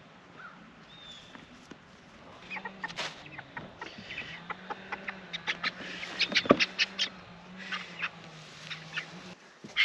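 Young chickens peeping and cheeping, getting busier about two and a half seconds in, with short clicks and rustles mixed among the calls and a faint low hum underneath.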